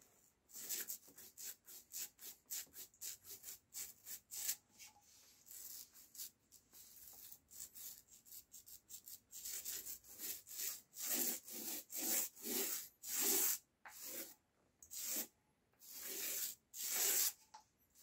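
Small paint roller rolling paint onto a plywood cabinet, a hissing rub with each stroke. Quick short strokes at first, then slower, louder back-and-forth strokes in the second half.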